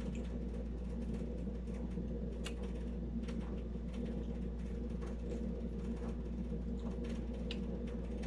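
Air conditioner running with a steady hum, with faint scattered clicks from eating by hand over it.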